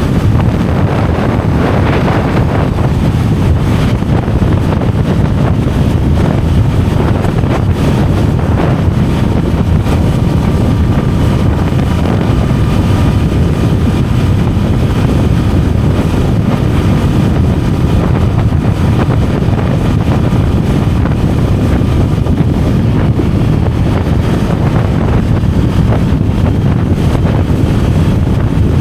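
Honda Rebel 500's parallel-twin engine running steadily while riding at cruising speed, with wind rushing over the helmet microphone.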